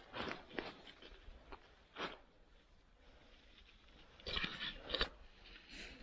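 Footsteps crunching through dry fallen leaves, in uneven bursts: a few steps at the start, one about two seconds in, a quieter stretch, then several steps together about four to five seconds in.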